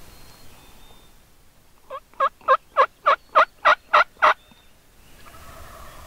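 Turkey yelping: a run of about nine loud yelps at roughly three a second, beginning softly about two seconds in and ending a little after four seconds, in the pattern of a hen turkey's yelp series.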